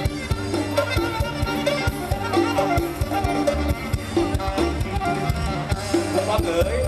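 Live mor lam band music: a steady drum beat under sustained bass notes and a bending lead melody.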